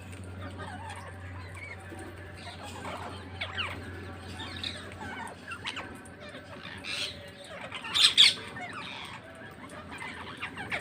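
Parrots calling: a run of short chirps and squawks, with two loud squawks close together about eight seconds in.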